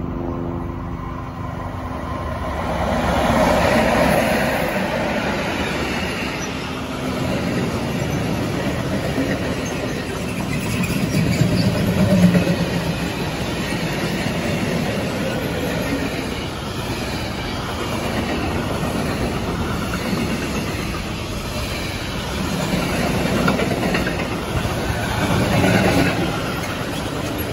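Electric freight train passing close by: the noise builds over the first few seconds as the locomotive comes past, then a long string of covered sliding-wall wagons rolls by with steady wheel-on-rail rumble that swells and eases several times.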